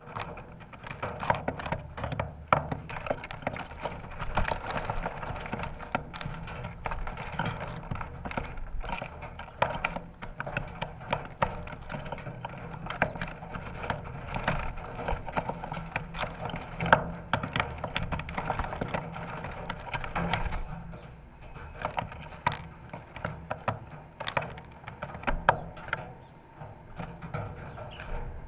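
Dense, irregular tapping, clicking and rustling from a flock of sparrows landing on, scrabbling over and pecking at a bird feeder, picked up up close by the feeder camera's microphone.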